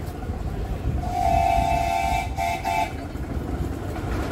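Miniature railway locomotive sounding a toot: one long steady note of about a second, then two short ones, over a low rumble of the approaching train.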